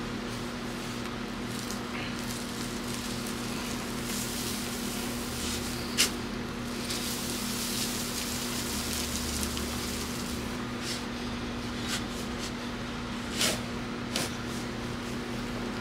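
Long-handled shovel digging in garden soil: dirt rustles and crumbles through the middle, and the blade strikes into the ground twice near the end, with one sharp click earlier. A steady low hum runs underneath.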